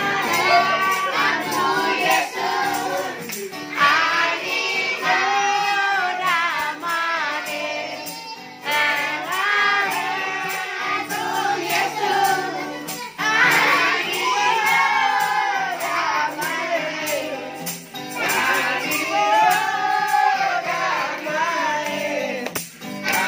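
A group of children singing a song together to a strummed acoustic guitar.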